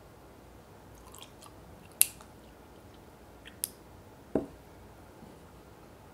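Ice cubes clinking against a glass mug as milk is poured over them: a few sharp, separate clinks, the loudest about two seconds in. A duller knock follows a little after four seconds.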